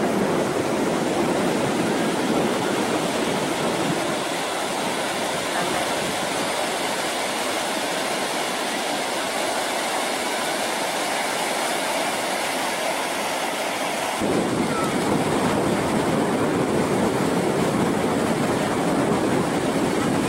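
Ocean surf breaking on a beach, a steady rush of waves; the sound changes abruptly about fourteen seconds in.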